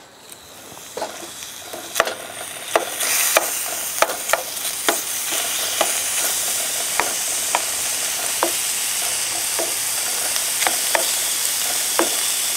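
Hot pan sizzling: a steady frying hiss that builds over the first few seconds, with scattered sharp clicks and pops.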